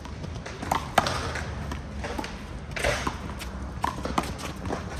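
One-wall handball rally: a small rubber handball is slapped by bare hands and smacks off the wall and pavement in a string of sharp, irregularly spaced smacks.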